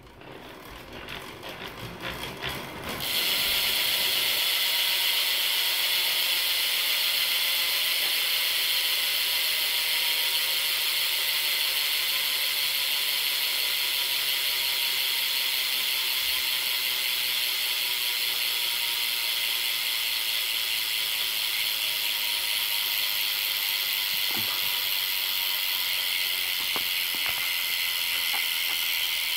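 Salt BMX rear hub freewheeling, its pawls ratcheting. There are separate clicks that speed up over the first few seconds as the wheel is spun up, then a steady, loud buzz as the wheel coasts freely.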